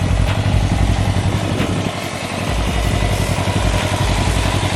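Can-Am Ryker three-wheeler's engine idling steadily.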